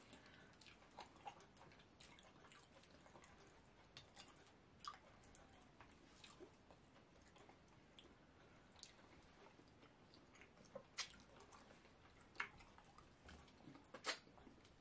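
Quiet, scattered wet clicks and smacks of fufu and slimy okro soup being eaten by hand: fingers squishing the dough and pulling up the stringy soup, and mouths chewing. The few loudest smacks fall in the last few seconds.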